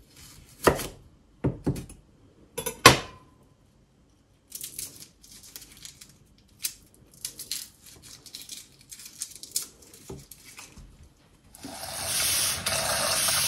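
A kitchen knife knocks on a wooden cutting board a few times while garlic is cut, then garlic skins crackle and rustle faintly as the cloves are peeled by hand. Near the end, tap water runs steadily into a saucepan in the sink for about two seconds, the loudest sound here.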